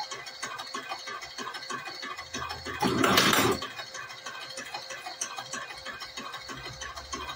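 Semi-automatic cigarette-rolling machine running, with steady mechanical ticking and a low motor hum, and a loud rushing burst about three seconds in. The bursts recur every four to five seconds, one per machine cycle.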